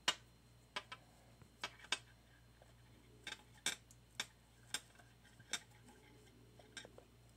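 Faint, irregularly spaced sharp clicks, about a dozen, from hands handling and tightening a yarn knot close to the microphone.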